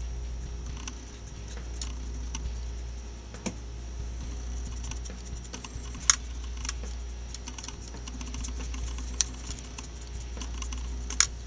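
Scattered light clicks and taps of a plastic model and brush being handled, with a handful of sharper clicks in the second half, over a steady low hum.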